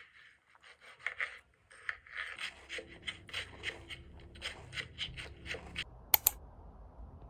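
Crunching of a waffle ice cream cone being bitten and chewed: an irregular run of crisp crackles. Near the end, two sharp clicks, the loudest sounds here.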